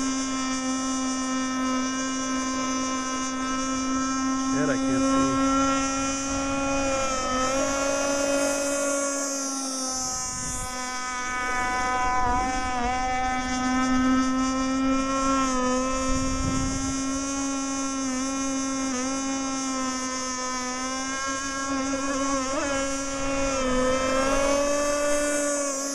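Gas-powered RC mono hull race boat's small two-stroke engine running at high revs, a steady high-pitched buzz that wavers briefly in pitch several times.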